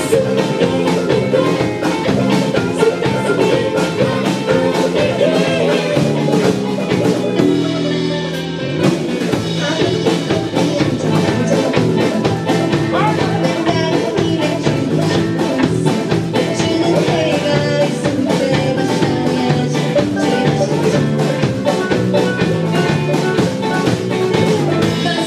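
Live rock band playing, with a drum kit driving a steady beat under the other instruments; the bottom end drops out briefly about eight seconds in before the full band comes back.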